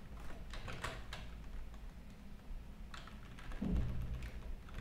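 Typing on a computer keyboard: scattered keystrokes in short runs, with a brief low thump or hum a little past three and a half seconds in.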